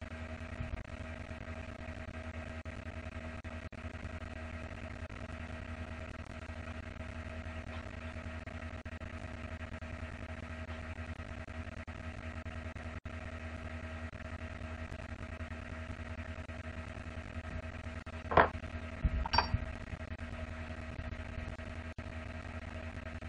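Steady machine hum with a few constant tones, like a fan or electrical hum. Near the end, two sharp clicks come about a second apart.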